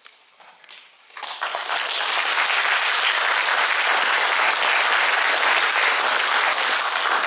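A congregation applauding. A few scattered claps at first, then the applause swells about a second in and holds steady.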